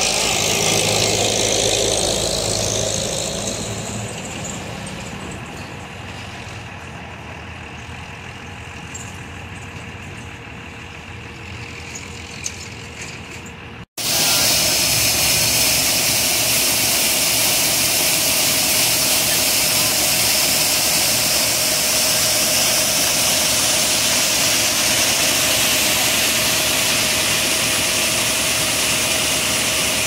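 A Farmall tractor engine running as it pulls a gravity grain wagon past, fading away over the first few seconds. After a sudden cut about halfway through, there is a loud, steady machinery drone at the grain bin, where the wagon is being emptied by the grain auger.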